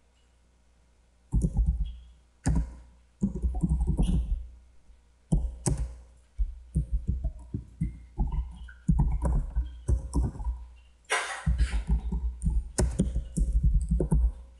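Typing on a computer keyboard: irregular runs of key clicks with a low thud under each stroke, broken by short pauses, starting about a second and a half in and densest near the end.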